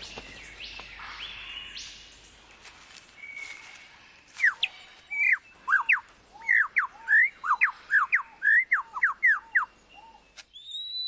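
Superb lyrebird singing: after a few softer calls, a loud rapid run of sharp whistled notes, some sweeping down and some up, two or three a second, begins about four seconds in and breaks off shortly before the end.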